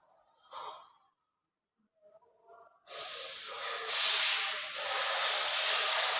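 A loud, steady hissing rush that starts abruptly about three seconds in, after near silence.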